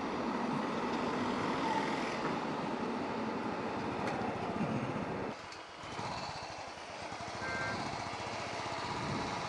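Motorcycle riding through city traffic: a steady rush of wind and engine noise, with a short high beep about seven and a half seconds in.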